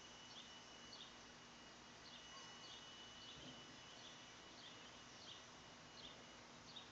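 Near silence: faint outdoor ambience, with small high chirps repeating about every half second.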